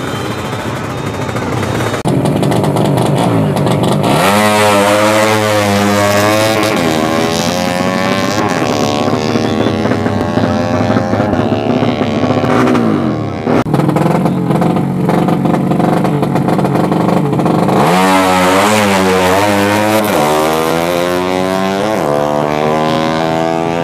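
Drag-racing motorcycle engines at full throttle. One bike launches and accelerates away, its pitch climbing and dropping back several times as it shifts up. After a steady high rev, a second bike launches the same way about three-quarters of the way through.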